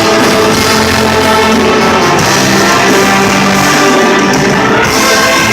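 A live orchestra playing at full volume, many instruments sounding together in a steady, dense ensemble.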